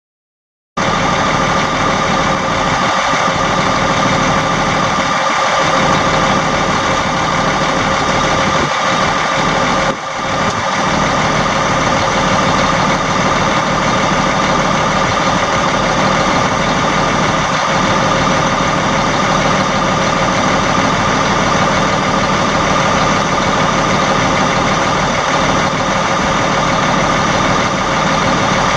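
Cummins M11 10.8-litre straight-six diesel of a 1998 International 5070 mixer truck, idling steadily. It starts abruptly about a second in, with a brief dip about ten seconds in.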